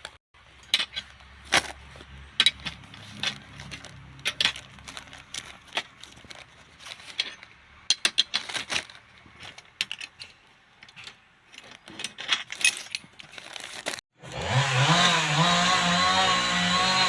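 Metal tool work on copper pipe: irregular sharp metallic clicks and clinks from a flaring tool being handled. About fourteen seconds in, a cut brings in a louder, steady sound with a wavering pitch.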